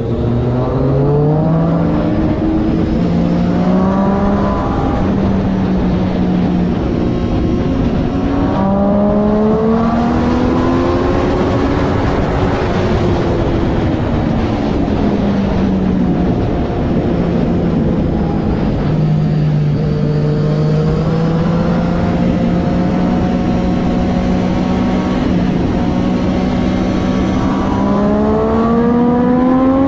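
Triumph Daytona 675R's three-cylinder engine at race pace. Its pitch climbs in short steps through gear changes in the first few seconds and rises again, falls away midway, holds a steady note for about ten seconds, then climbs again near the end, over a constant rushing noise.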